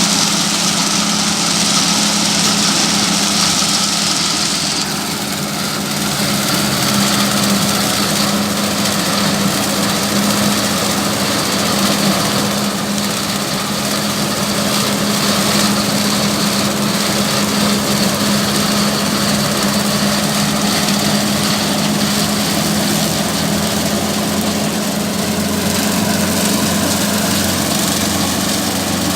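An engine-driven machine running steadily with a constant low hum. A bright hiss on top eases off about five seconds in.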